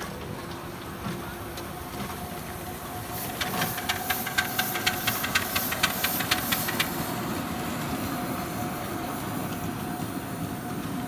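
A 7¼-inch gauge Bagnall steam locomotive passing close by: for a few seconds about three seconds in, its exhaust chuffs sharply about four times a second with steam hiss, then the train runs on with a steady rumble of wheels on the track.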